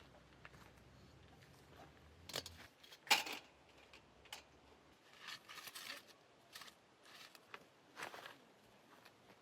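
Scattered small clicks and rustles of objects being handled, the sharpest click about three seconds in and a longer rustle a couple of seconds later. A faint low hum stops shortly before the loud click.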